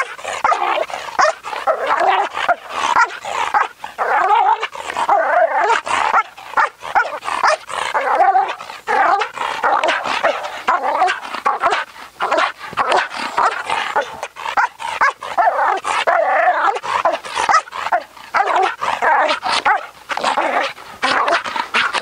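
Belgian Malinois barking rapidly and continuously, bark after bark with only brief gaps: a dog in defence drive, feeling threatened and reacting aggressively to drive off the threat.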